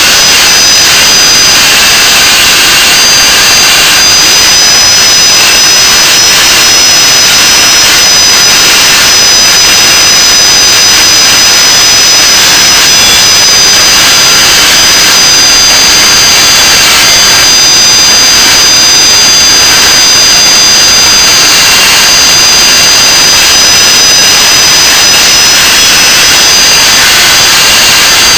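Belt sander grinding a steel leaf-spring knife blank flat: a loud, steady rushing hiss with a high whine over it.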